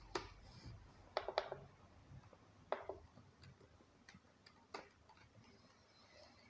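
Faint, irregular clicks over quiet room tone, about six in all, with a quick pair about a second in.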